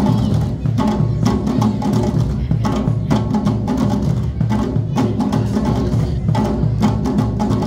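Ensemble of djembe hand drums, with congas, struck with bare hands together in a continuous, steady rhythm of dense drum strokes.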